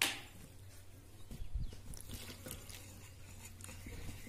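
A wire whisk scraping and clicking in a glass bowl as water is stirred into flour for batter, faint and irregular, growing a little busier near the end. A brief sharper sound comes right at the start.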